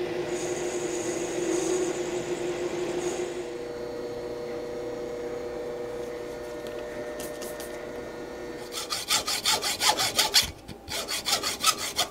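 Metal lathe turning a drill-rod valve blank while a ground tool bit cuts the valve face: a steady running hum, with a high cutting hiss over the first few seconds. Near the end, a run of quick rasping strokes, several a second.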